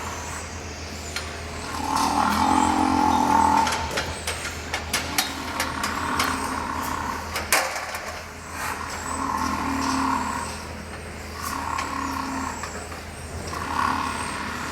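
A cow snoring loudly: rough, pitched snores that swell and fade every two to four seconds. Scattered clicks and a sharp knock about halfway through sound between them, over a steady low hum.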